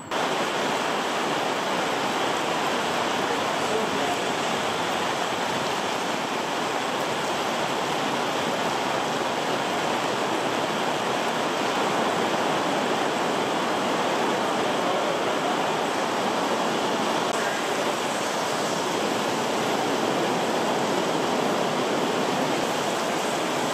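A steady rushing noise that starts suddenly and holds at an even level throughout.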